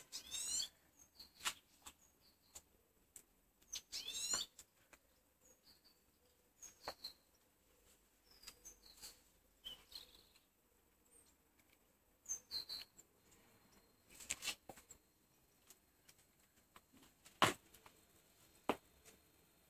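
Small birds chirping on and off in short sweeping calls, with a few sharp knocks and taps among them.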